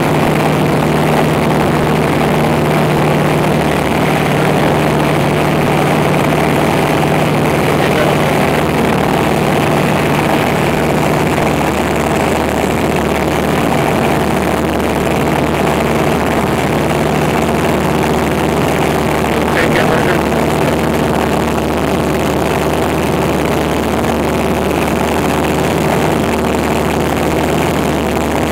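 Light airplane's engine and propeller droning steadily in flight, heard from inside the cabin.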